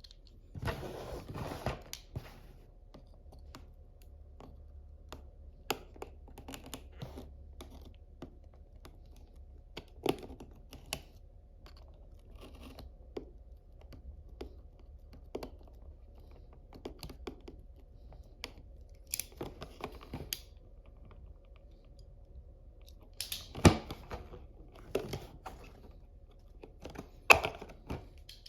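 Plarail toy railroad crossing being unboxed by hand: irregular small clicks and rustles of packaging and plastic parts. There is a longer noisy stretch near the start, and two sharper, louder clicks come in the last few seconds.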